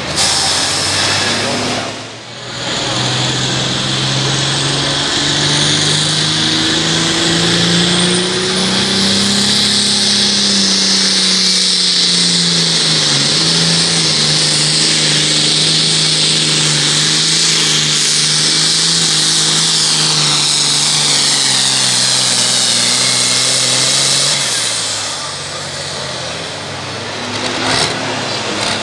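John Deere 4255 super farm pulling tractor's diesel engine at full throttle under load, with a strong high whine over it. The engine note climbs, sags about halfway, then runs steady until the throttle comes off near the end.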